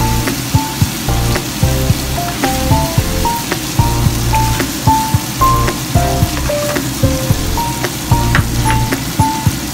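Food sizzling steadily in a hot frying pan, under background music with a melody and a stepping bass line.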